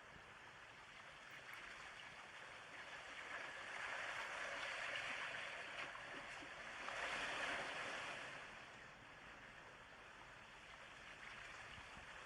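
Surf washing onto a shore: a soft, steady hiss of water that swells twice, about four and seven seconds in.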